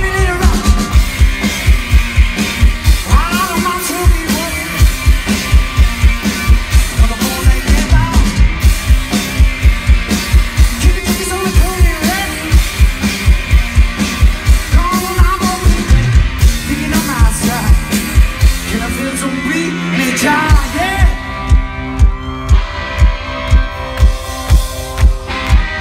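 Live rock band playing: electric guitar over a steady, driving drum-kit beat.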